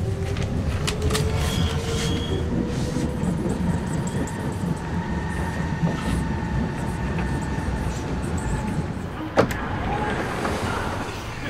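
Berlin U-Bahn subway train running, with a steady low rumble and a motor whine that rises at the start and then holds steady. A single sharp click comes about nine seconds in.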